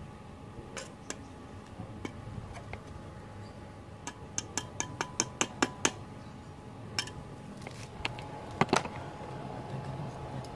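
Stick welding electrode on a Daisung ARC200-MOS inverter welder set to 50 amps, tapped and scratched against the steel workpiece to strike an arc: a string of sharp clicks and snaps, with a quick run of about eight about four to six seconds in and two louder ones near the end.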